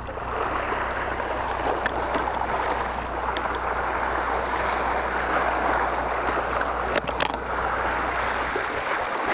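Sea waves washing against shoreline rocks: a steady rushing wash, with a few sharp ticks and a low hum underneath that stops shortly before the end.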